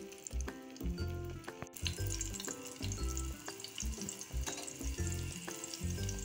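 Hot oil sizzling around a dough parcel as it shallow-fries in a pan, a fine crackling hiss, under background music with repeating bass notes.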